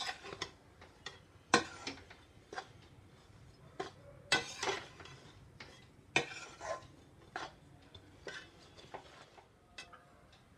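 A spoon scraping and clinking against a metal kadhai as a dry mix of roasted gram flour and powdered sugar is stirred. It makes a dozen or so irregular strokes that grow fainter toward the end.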